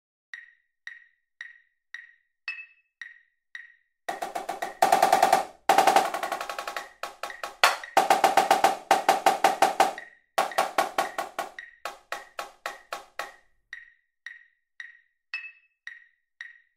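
Sampled marching snare drum (Virtual Drumline MIDI) playing a phrase of accented rudimental figures, with rolls, triplets and sixteenth-note runs, at 112 beats per minute. The phrase is framed by a metronome clicking on each beat, about two clicks a second: a count-in for the first four seconds, and the clicks again after the snare stops near the end.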